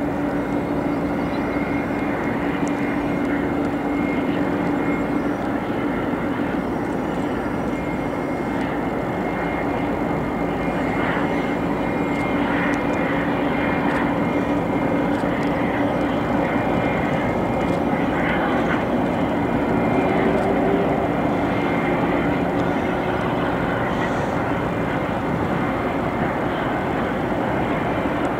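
Airbus A310-300's twin jet engines running at taxi power as the freighter taxis: a steady rushing jet sound with a held low drone and a high whine.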